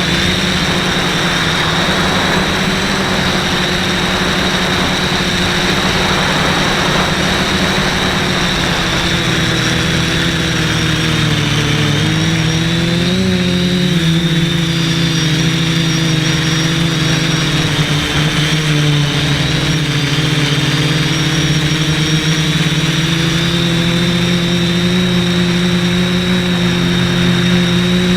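Quadcopter's brushless motors and propellers humming steadily in flight. The pitch wavers up and down about twelve to fourteen seconds in as the throttle changes.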